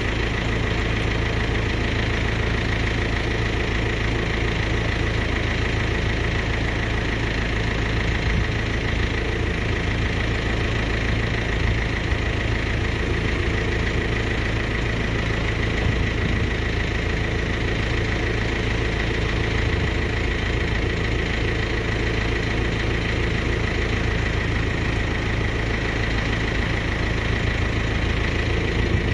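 Engine running steadily at a constant speed, powering the hydraulics of a Palfinger PC2300 crane as its boom is moved, with a steady high whine over the engine note.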